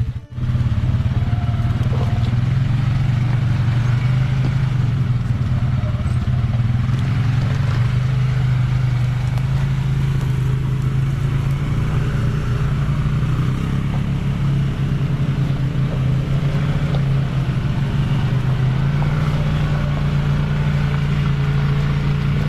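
Quad bike (ATV) engine running steadily while riding, with a low, even drone that rises a little in pitch near the end.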